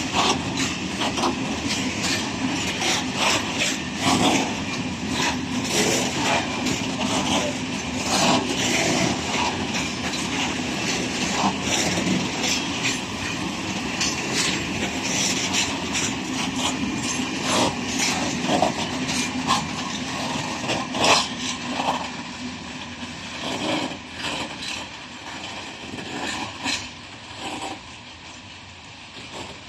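Freight train rolling past, its wagon wheels clattering over rail joints in an irregular run of sharp knocks over a steady rumble, fading away over the last several seconds as the train moves off.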